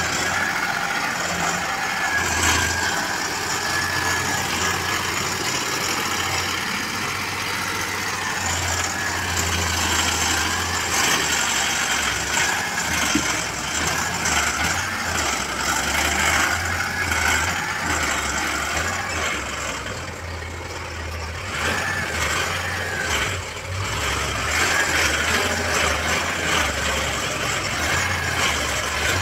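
Mahindra Arjun Novo 605 DI tractor's diesel engine running steadily under load as the tractor tries to pull its trolley out of deep mud with its wheels slipping. The engine note drops briefly about two-thirds through, then picks up again.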